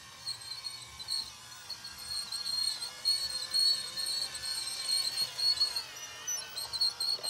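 Battery-powered toy Christmas train running on plastic track and passing close by: a steady thin, high whine from its small motor and gears, with small irregular bumps as it rolls over the track.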